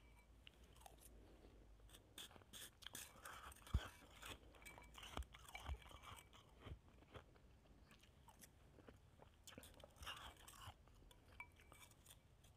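Faint chewing and crunching of shaved ice made from a frozen bottle of water, in several short clusters with scattered small clicks. One sharper knock comes a little before four seconds in.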